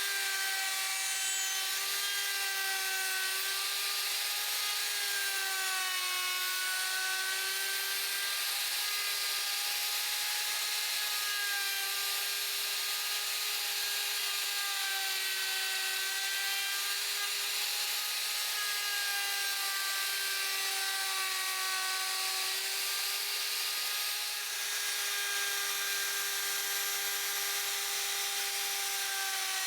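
A small handheld power tool running continuously against wood, likely sanding or shaping a guitar part. Its motor whine sags and recovers slightly in pitch as it bears on the work, over a rough rasping hiss.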